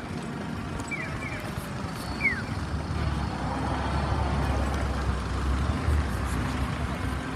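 Street traffic: a low vehicle rumble that builds about three seconds in and eases off near the end, with a few short, falling bird chirps in the first few seconds.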